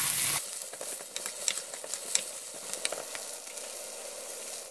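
Sliced onions and carrots frying in oil in a wok, sizzling steadily with scattered small crackling pops. A wooden spatula stirs them briefly at the start, and then the sizzle carries on more quietly.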